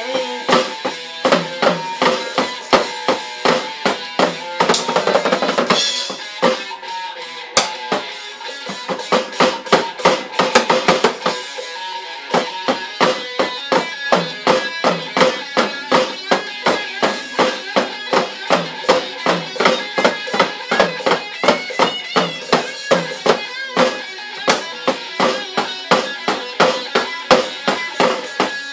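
Electronic tabletop drum pad played with drumsticks, keeping a steady beat of about three hits a second, with quicker fills a few seconds in and around ten seconds in, over pitched music.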